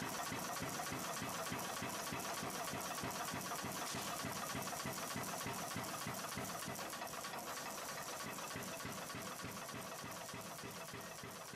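Big Blu pneumatic power hammer running steadily, its dies striking a glowing hot bar several blows a second as a taper is drawn out. The blows grow gradually quieter over the last few seconds.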